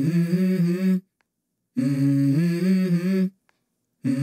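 Hummed vocal melody in short phrases of held notes that step up and down in pitch. One phrase ends about a second in, another runs through the middle, and a third begins near the end, with dead silence between them.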